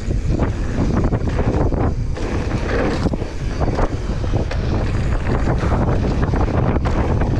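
Wind buffeting the microphone of a camera riding along on a fast mountain bike descent. The tyres run on dirt, and the bike rattles with many short knocks over bumps.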